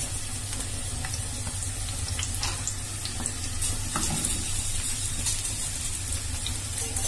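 Chunks of red onion sizzling in hot oil in a nonstick frying pan as they are dropped in by hand, a steady hiss with a few faint taps as pieces land.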